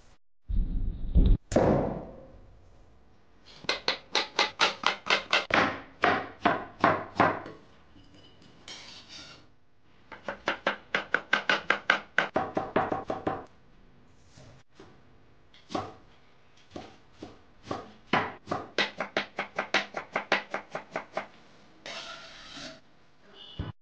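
A knife chopping green chillies and coriander leaves on a wooden cutting board, in runs of quick even strokes, about four a second, with pauses between runs. A loud low thump sounds near the start.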